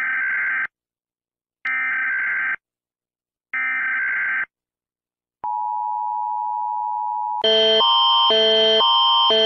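Emergency Alert System alert: three short screeching bursts of SAME header data about a second apart, then the steady two-tone EAS attention signal for about two seconds. About two-thirds of the way in a louder alarm of stacked tones takes over, switching back and forth between two chords.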